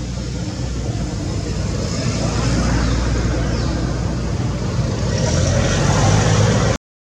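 Steady rumble of a motor vehicle running nearby, slowly growing louder, cut off abruptly near the end.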